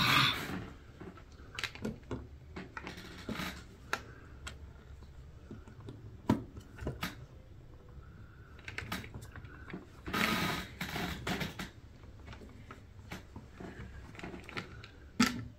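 LEGO plastic parts being handled and pressed together: an irregular scatter of small clicks and knocks, with a louder stretch of handling noise about ten seconds in.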